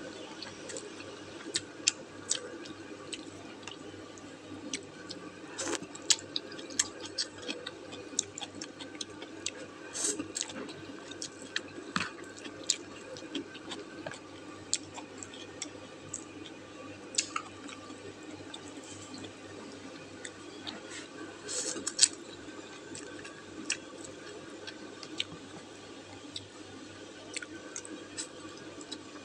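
Someone eating wonton noodle soup: quiet chewing and mouth sounds with scattered small clicks and ticks, over a faint steady hum.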